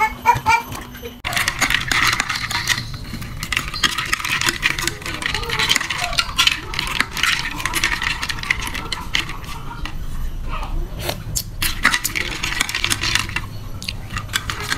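A metal spoon stirring ice cubes in a plastic mug of iced drink: a quick, continuous run of clinks and rattles that starts about a second in.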